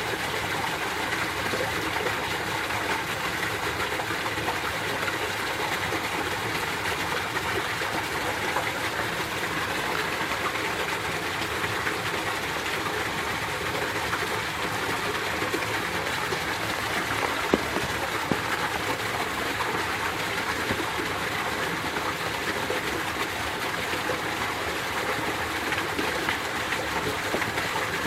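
Mountain stream water rushing steadily over rocks, with two brief clicks a little past halfway.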